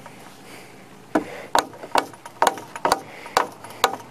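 A run of about eight sharp knocks on wood, evenly spaced at roughly two a second, starting about a second in.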